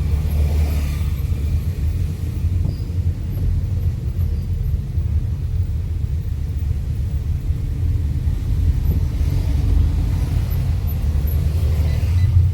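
Steady low rumble of a Fiat Linea on the move, heard from inside the cabin: engine and road noise, with a faint hiss that swells a little near the start and near the end.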